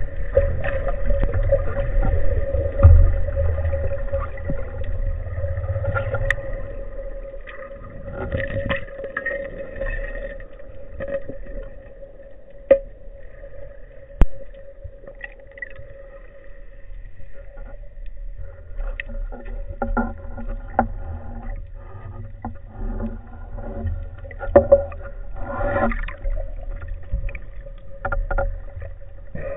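Underwater sound: a steady hum over a low rumble of surging water. The rumble drops away for several seconds in the middle and then returns. A few sharp clicks come through, with a quick double click near the end.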